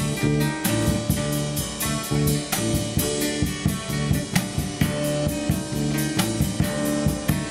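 Live acoustic band music: a drum kit playing a busy beat of snare, bass drum and cymbal hits over low plucked guitarrón bass notes, with a steady held tone higher up.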